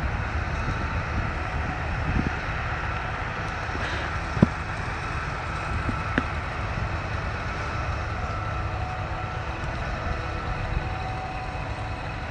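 Steady rumble of distant farm machinery at a maize silage harvest: a forage harvester and tractors hauling trailers, mixed with wind buffeting the microphone. A single sharp knock about four seconds in.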